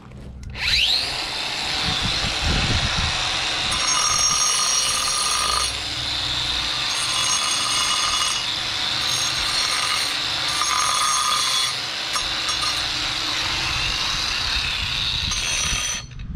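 Power saw cutting a piece of stone pool coping: the blade spins up with a rising whine about half a second in, runs loud and steady through the cut with a high whine that comes and goes, and cuts off near the end.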